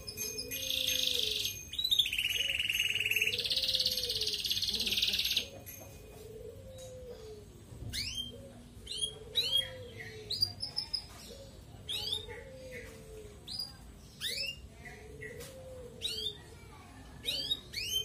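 Domestic canary in full song: a loud rolling trill lasting about five seconds, then a run of short rising chirps, one or two a second. A fainter, lower call repeats about once a second underneath.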